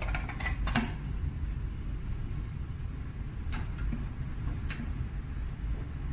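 Short clicks of fingers pressing the buttons on an automatic wire feeder's control panel: a quick cluster at the start, then three more between about three and a half and five seconds in, over a steady low hum.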